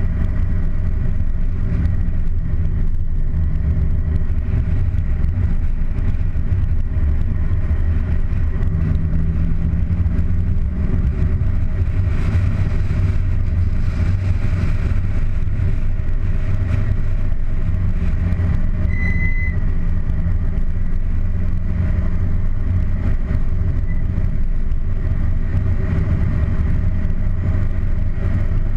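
Car driving at a steady pace, heard from a camera mounted on its bonnet: a steady low rumble of wind and road noise with the engine's drone underneath. A short high beep sounds about two-thirds of the way through.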